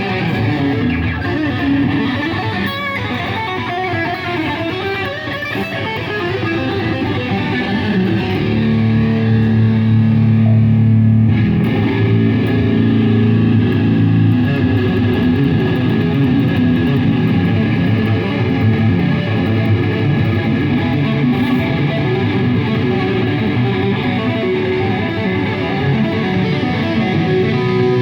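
Electric guitar played through an amplifier during a band's sound check, ringing out sustained chords and notes. Low bass notes come in and hold from about a third of the way through.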